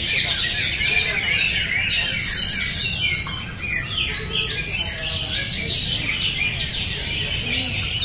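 Many caged greater green leafbirds (cucak hijau) singing at once in competition: a dense, unbroken chorus of overlapping chirps and short whistled phrases, over a low steady background rumble.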